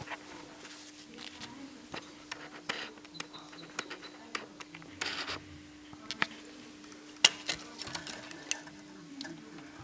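Scattered small clicks, taps and scrapes of hands handling the plastic internals of an opened LCD projector around its LCD panel, over a steady hum. There is a short scrape about five seconds in, and the sharpest click comes a little after seven seconds.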